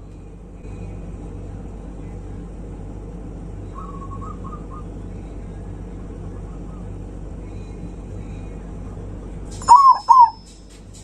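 Zebra dove (perkutut) cooing loudly: a short phrase of about three round notes near the end, over a steady low background hum, with faint chirping from another bird about four seconds in.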